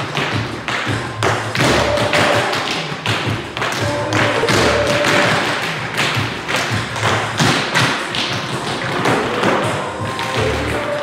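A group of tap dancers' shoes striking the floor in quick, dense rhythms, with recorded music playing underneath.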